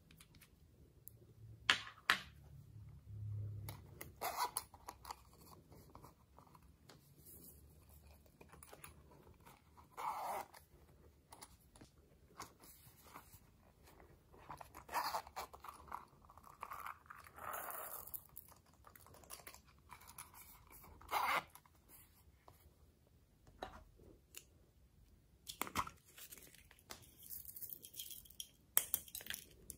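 Small plastic toy containers being handled and opened: a few sharp plastic clicks and snaps of lids, between stretches of crinkly scraping and rustling as clay pieces, glitter and beads are tipped and scraped out onto slime.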